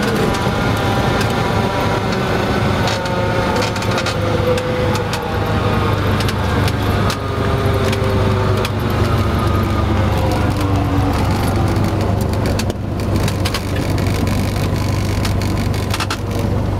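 Cessna 172's engine and propeller running in the cabin, with a steady low drone and a whine that falls slowly in pitch over several seconds, as after landing. Scattered clicks and rattles run through it.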